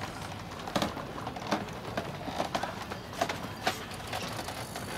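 Irregular knocks and taps on a bamboo fishing platform, about eight sharp ones spread unevenly over a few seconds, over a steady outdoor background hiss.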